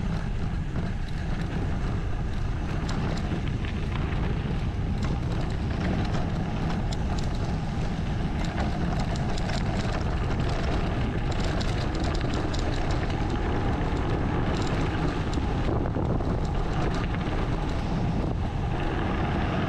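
Wind rumbling on the microphone of a bike-mounted camera as a mountain bike rolls down a gravel and stony dirt track, tyres crunching over stones and the bike rattling in many small clicks.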